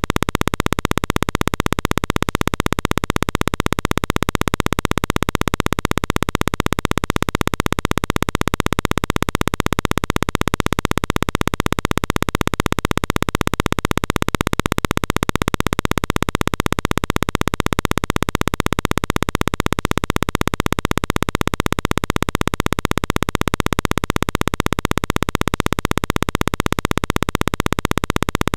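A loud, steady, noise-like buzz that cuts out briefly and evenly about three times a second, unchanging throughout.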